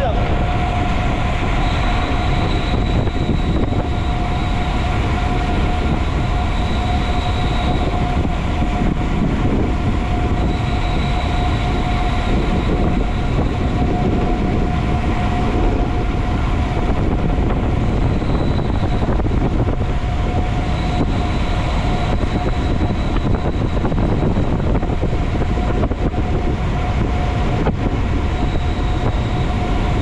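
Steady wind rush on the microphone and tyre hum from a bicycle rolling at speed on the road, with a steady mid-pitched hum and a faint high whine that comes and goes every few seconds.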